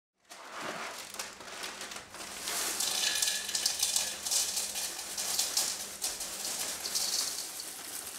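Dry corn flakes poured from the box into a bowl: a dense crackly pattering of flakes landing and spilling, getting louder after about two seconds.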